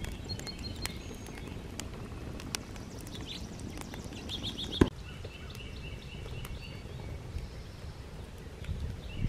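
Wood fire burning in a steel truck-wheel fire pit: scattered small crackles and snaps over a low rumble, with one sharp pop about halfway through. Birds chirp in short runs of quick repeated notes.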